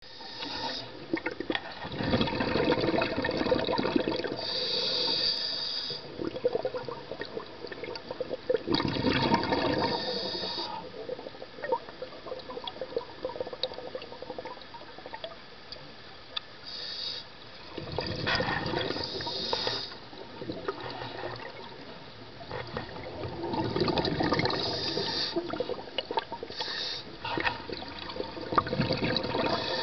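Scuba diver breathing through a regulator underwater: bursts of exhaled bubbles about every six to eight seconds, each lasting a couple of seconds, with shorter high hisses from the regulator between them.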